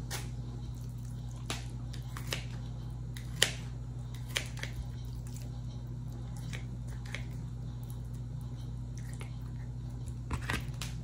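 Kitchen scissors cutting raw chicken thighs: scattered sharp snips and blade clicks, the loudest about three and a half seconds in, over a steady low hum.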